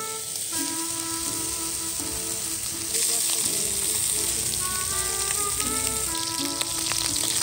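Angus beef hamburger patties sizzling as they fry, a steady hiss that grows louder about three seconds in. Background music plays alongside.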